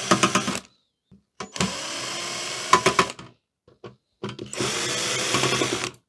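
Cordless drill-driver spinning out the TV main board's mounting screws in three short runs, each ending in a quick series of clicks.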